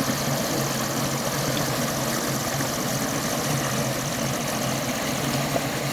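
Tractor diesel engine running steadily to drive a gearbox water pump, with water gushing out of a 5-inch delivery pipe at full flow.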